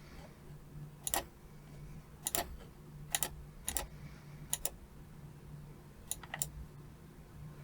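Trackball buttons clicking about seven times at irregular intervals, each a quick press-and-release double click, over a faint steady low hum.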